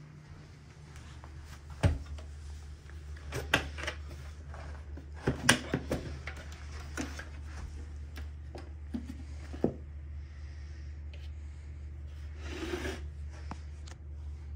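Plastic clicks and knocks as a bagless vacuum's clear dust bin is handled and opened, then near the end a short rustle as the packed dust and hair drop out onto carpet. A steady low hum runs underneath.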